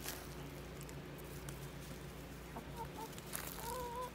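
Chickens clucking softly: a few short calls about two and a half seconds in, then a longer wavering call near the end.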